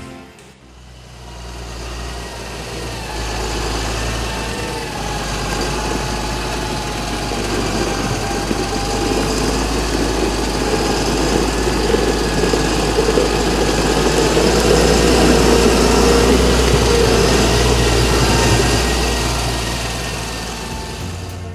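Fendt 936 Vario tractor's six-cylinder diesel engine running steadily as the tractor drives close by. It comes in about half a second in, grows louder to a peak about three-quarters of the way through, then eases off.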